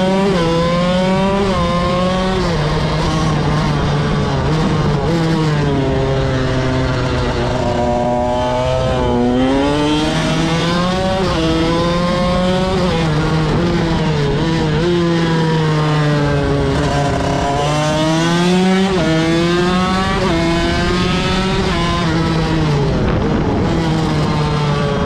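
KTM 85 SX two-stroke single-cylinder engine, heard from on board the bike as it laps. Its pitch climbs and drops again and again as the bike accelerates, changes gear and backs off for corners.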